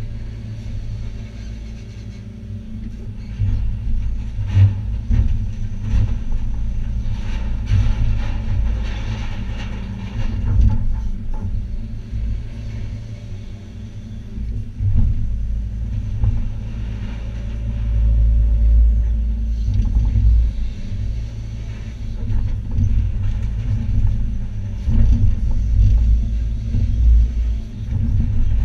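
Hitachi ZX280 excavator's diesel engine and hydraulics running steadily as a low rumble heard from inside the cab, getting louder at times as the boom works. Scattered knocks and clatter of demolition rubble handled by the bucket.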